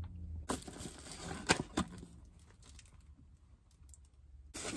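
Faint handling noises with two sharp clicks about a second and a half in, as a paperboard pastry box is opened and handled.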